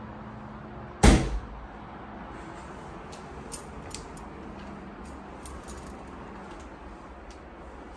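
A sharp knock about a second in, with a smaller second hit just after it, then faint scattered clicks as a built-in cupboard door is pulled open by its metal handle.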